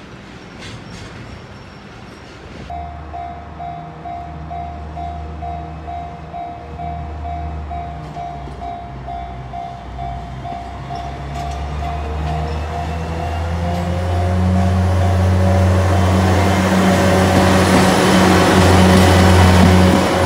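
Freight wagons rolling past with rail-joint clicks, then a level-crossing bell ringing about twice a second. Under the bell, a diesel freight locomotive's engine drone and wheel noise grow steadily louder as it approaches and passes the crossing, the train becoming the loudest sound near the end.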